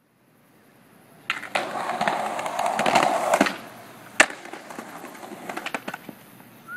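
Skateboard wheels rolling over concrete, loudest in the first half, with one sharp clack of the board about four seconds in, then quieter rolling.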